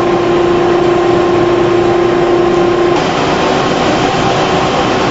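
Candy-factory production machinery running: a loud, steady mechanical rush with a steady hum that stops about three seconds in while the rush carries on.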